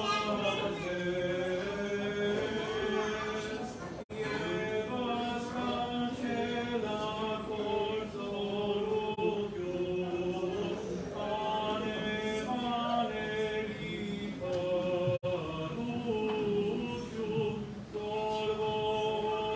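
Male voices chanting an Armenian church hymn, with long held notes and slow melodic turns, interrupted by two very brief dropouts in the sound.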